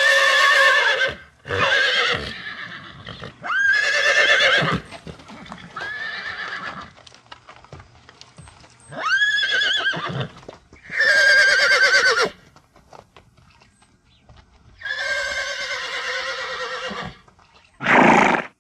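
An animal calling over and over, about eight times: each call is pitched and wavering, lasting about a second, and several sweep up in pitch at the start.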